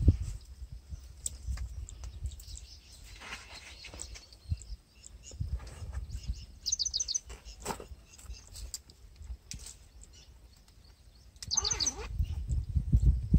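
Wind buffeting the microphone in low gusts, with a bird giving a short run of rapid high chirps twice, about seven and twelve seconds in. Light rustling and scattered faint clicks in between.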